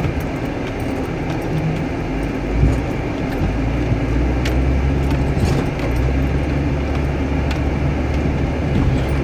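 Old Jeep's engine running at low speed, heard from inside the cab while it drives over rough ground, with light rattling and clicking throughout and a thump about two and a half seconds in.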